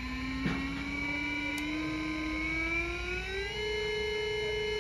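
Krones servo motor with built-in drive, free-running on a test run after repair: its electric whine rises steadily in pitch for about three and a half seconds as it speeds up, then holds steady.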